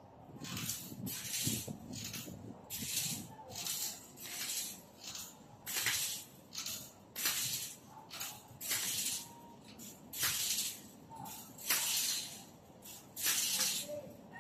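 A man breathing hard through pursed lips while straining at a spring power-twister bar: short, sharp hissing breaths, in and out, about one a second.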